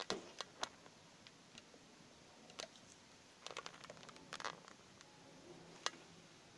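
Metal spoon clinking and scraping against a plastic tub while stirring milk: a few separate sharp clicks, with a quick run of small clicks about three and a half to four and a half seconds in.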